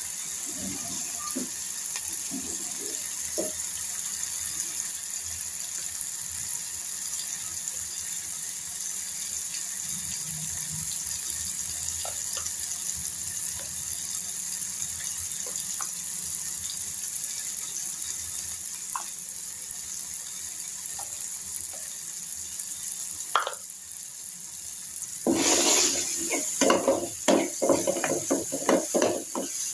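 A pot of dal with added water cooking on the stove, a steady hiss of simmering and sizzling. About 25 seconds in, a run of louder, irregular knocks and clatters begins, like a spoon stirring and striking the pot.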